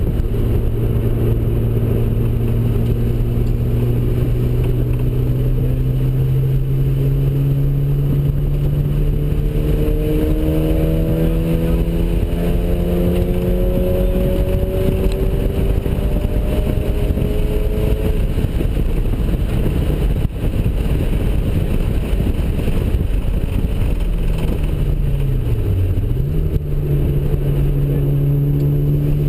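Mazda RX-7's ported twin-turbo rotary engine at full throttle on low boost, its pitch climbing slowly through a long pull, then dropping back. Near the end the pitch dips sharply and comes straight back up, and the engine pulls again.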